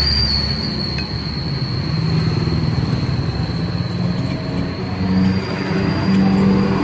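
Road traffic with a large diesel cargo truck's engine growing louder as it approaches. A steady high-pitched whine runs over it.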